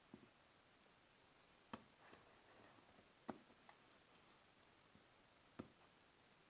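Near silence broken by about five faint, sharp clicks and taps, spaced irregularly, as a small brushless motor and its packaging are handled.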